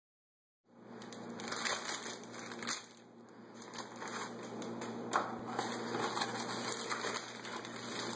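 Paper sandwich wrappers crinkling and rustling as burgers are unwrapped by hand, in irregular crackly handfuls. It starts just under a second in.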